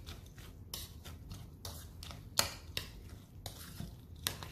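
A spoon stirring wet stuffing mix in a bowl, freshly soaked with warm water to soften it. There are soft scraping sounds and irregular sharp clicks where the spoon knocks the bowl, about five of them standing out.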